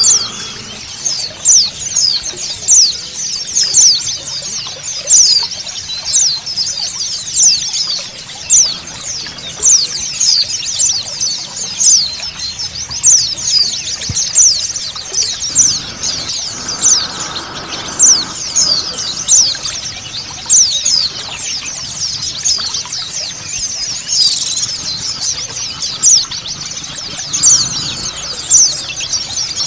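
A flock of white-eyes (pleci) twittering: a dense, unbroken stream of rapid, high, sweeping chirps over a steady background of running water.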